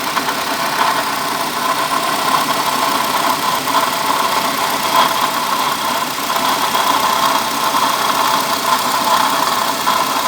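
Car engine idling steadily with a continuous whirring noise strongest in the upper-middle range, which the owner takes for a bad water pump.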